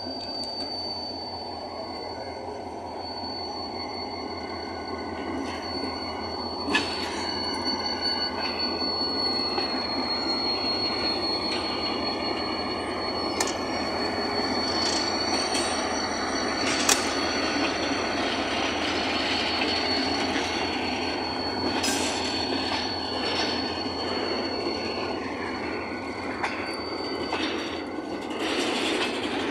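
A slow diesel freight train passing close: NREC E-2300 diesel-electric locomotive no. 2004 rumbling by, then hopper wagons rolling, with a steady high-pitched squeal from the wheels on the rail and a few sharp clicks and clanks.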